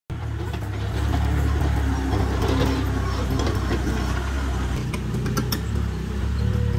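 Hitachi EX30 mini excavator's diesel engine running steadily as the machine pushes and digs soil, with a few sharp knocks about five seconds in.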